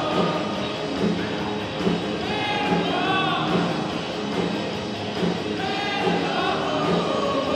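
Live rock band playing with a man singing lead: sung vocal lines over drums and guitars, with a steady cymbal beat.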